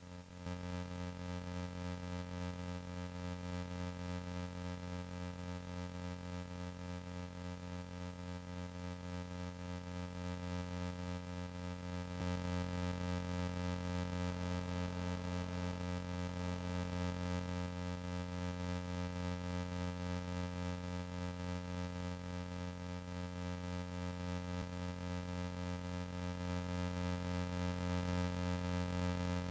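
Electronic background music: sustained synthesizer chords over a steady pulsing beat, growing louder about halfway through.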